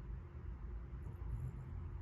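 Light snoring, a soft low rumble in the breath.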